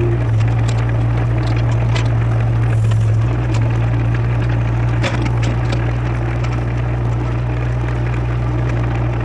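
Excavator's diesel engine running under load with a steady low drone. Scattered sharp cracks and crunches come from the bucket digging and breaking up soil.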